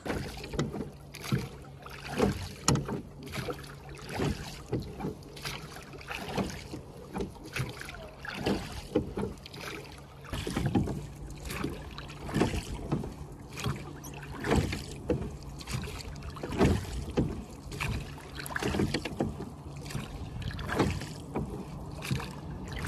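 Small rowboat being rowed with wooden oars, the blades splashing in and out of the water with each stroke in an uneven rhythm of about one every second or two.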